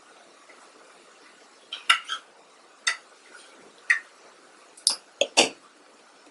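Light, sharp metallic clicks from a precision screwdriver and tiny screws against the inside of an iPhone 6s Plus as its screws are put back in. Several clicks come close together about two seconds in, then single ones about a second apart.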